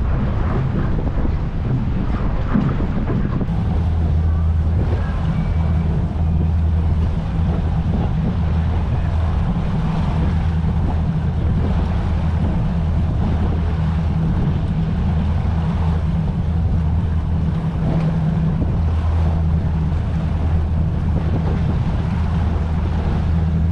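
DCB performance catamaran's engines running under way with a steady low drone that grows stronger a few seconds in, over wind buffeting the microphone and water rushing past.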